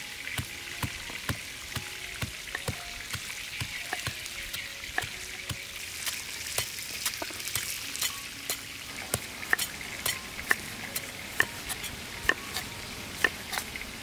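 Kitchen knife slicing tomatoes on a wooden chopping board, its blade knocking sharply on the board. The knocks are faint at first and come louder and more often in the second half. A steady sizzle-like hiss runs underneath.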